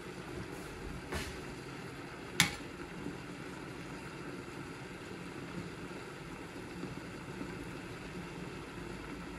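Vegetable gravy simmering in a steel wok, a steady low hiss, with one sharp tap about two and a half seconds in.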